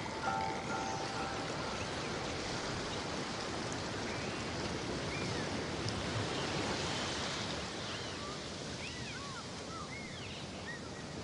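Steady rushing noise of water, like surf, with a few short high chirps in the second half.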